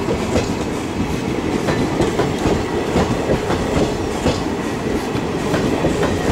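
Indian Railways passenger coaches rolling past close by: a steady rumble of steel wheels on rail, with many sharp clacks as the wheels cross rail joints.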